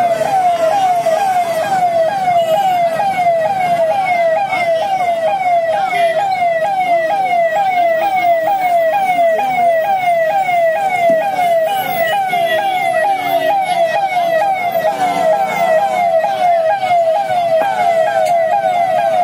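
Electronic vehicle siren sounding without a break in a fast repeating yelp, each note falling in pitch, about two a second, over a low background of traffic and crowd noise.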